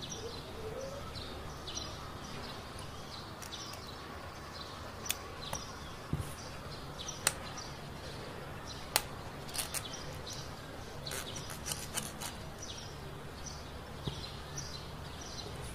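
Sharp little clicks of plastic Gunpla model kit parts being pressed and snapped together by hand, about a dozen scattered through, over a steady low background hum.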